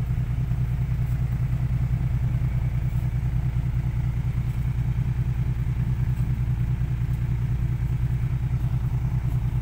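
A dump truck's diesel engine idling steadily with an even, rapid throb while the truck sits bogged down in soft sand.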